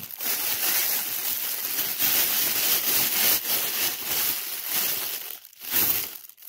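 Red metallic foil gift wrap crinkling steadily as hands crush and pull at it. The crinkling pauses briefly near the end, then comes back once.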